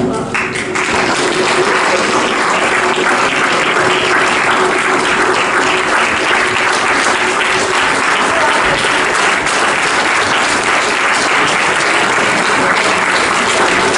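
Audience applauding, rising about half a second in and then holding steady.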